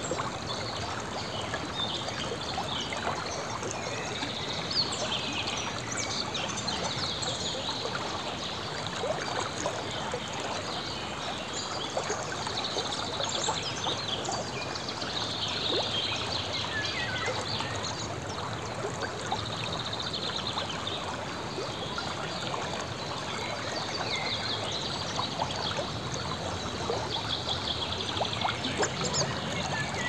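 Shallow river flowing over a stony bank, with a steady babbling of water. Small birds chirp and sing over it.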